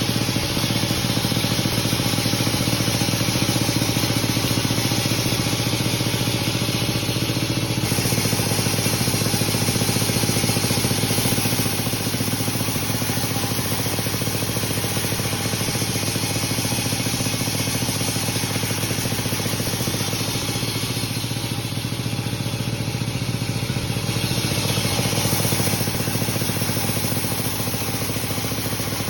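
Sawmill machinery running steadily, a constant engine-like drone with hiss above it; the hiss changes character about eight seconds in.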